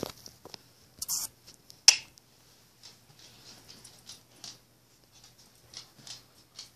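A Border Collie's claws ticking and pattering on a laminate floor as it moves and turns, with two louder sharp knocks or rustles in the first two seconds.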